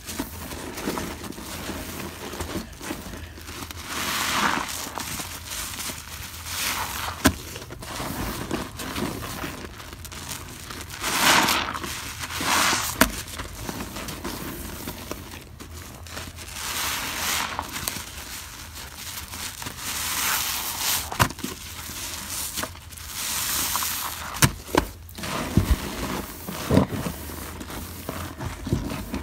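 Soap-soaked sponges squeezed and kneaded by hand in thick suds: wet squishing and crackling of foam that swells in waves every few seconds, with a few sharp clicks near the end.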